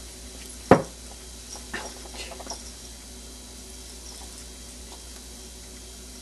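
A single sharp knock or thump about a second in, followed by a few lighter knocks and scuffles, over a steady low hum.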